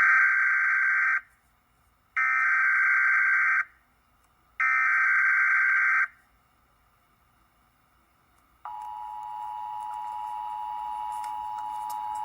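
Emergency Alert System broadcast opening: three bursts of buzzing, modem-like data tones (the SAME header), each about a second and a half long with short gaps between. After a pause, the steady two-tone attention signal starts near the end and holds.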